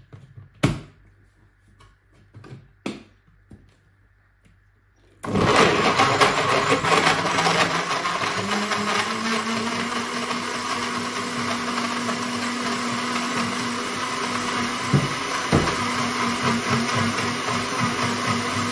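SilverCrest SSMKH 600 A1 600 W countertop blender: a few sharp clicks and knocks as the lid is fitted onto the jug. About five seconds in the motor switches on and runs steadily at full load, churning a liquid mixture in the jug.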